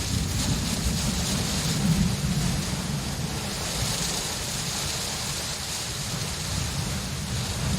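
Steady rain falling, with a low rumble underneath that swells briefly about two seconds in.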